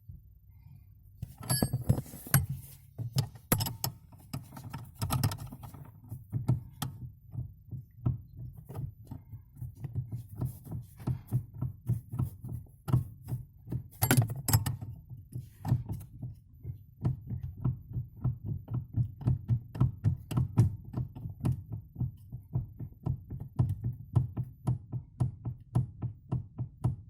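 Nissan Almera's steering knocking: a long run of dull knocks, a few a second, as the steering wheel is rocked back and forth in short turns, the steering knock the owner is recording.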